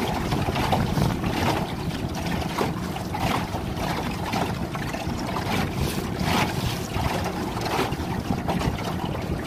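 Small boat moving over choppy sea: water rushing and slapping against the hull in irregular surges, with wind buffeting the microphone.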